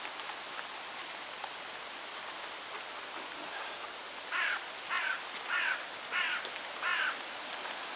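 An animal gives five harsh calls in a row, each short and about half a second apart, starting about halfway through, over a steady outdoor hiss.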